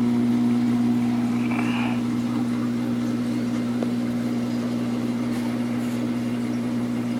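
Steady low hum, with a short faint chirp about a second and a half in.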